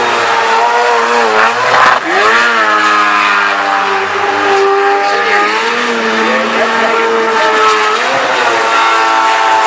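Jet sprint boat engine revving hard through the course turns. Its pitch rises and falls with the throttle, dropping sharply about two seconds in and climbing again, over the rushing hiss of the jet's spray.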